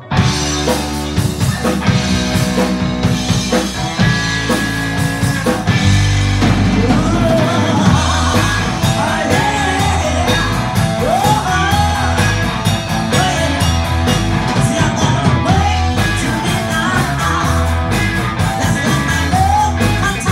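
Live band starting up all at once: drum kit, bass guitar and electric guitar, with a woman singing into a microphone from about six seconds in.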